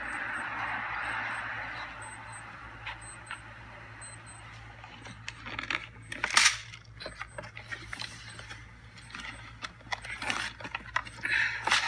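Handling noise as a phone camera is moved about: a rustling at first, then scattered clicks and knocks, one sharp knock about six seconds in standing out.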